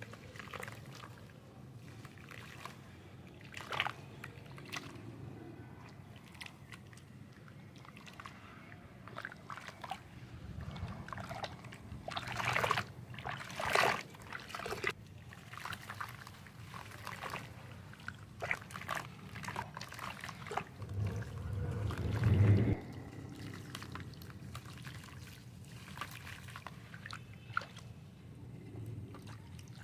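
Chunks of soft sand crumbling and dropping into water: a crackling patter with small splashes and trickles, busiest about 12 to 14 seconds in and loudest around 22 seconds in.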